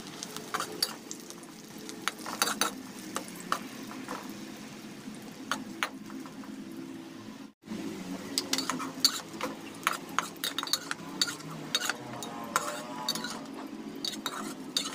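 Tempeh strips frying in hot oil in a wok, with a metal spatula clicking and scraping against the pan as they are stirred and turned. The sound drops out for a moment about halfway through.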